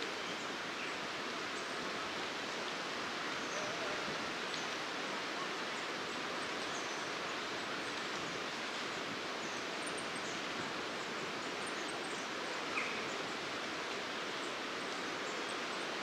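Steady rushing background noise of a woodland, with faint, very high, thin goldcrest call notes scattered through it. A single louder short note comes about thirteen seconds in.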